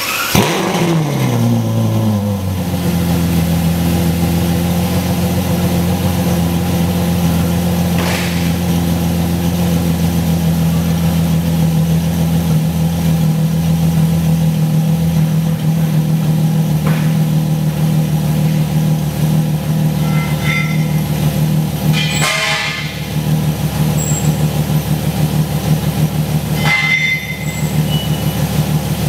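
Ferrari F12 Berlinetta's 6.3-litre V12 running through an Fi Exhaust catless, valved exhaust with the valves closed. The revs of its start-up flare fall away over the first two seconds or so, and it then settles into a steady idle. Two brief noises sound over the idle, about two-thirds of the way through and again near the end.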